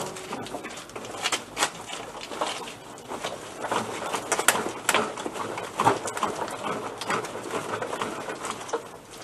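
Motobécane AV89 moped being rocked back and forth by hand, its frame, luggage rack and stand giving irregular knocks and rattles. The shaking stirs the two-stroke oil back into the petrol in the tank after months unused.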